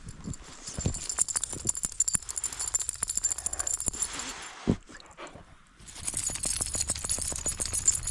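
Metal harness hardware jingling and rattling in quick, uneven beats as a dog bounds through deep snow, heard close up from a camera on the dog's harness. It stops for about a second and a half near the middle, with a single thump, then starts again.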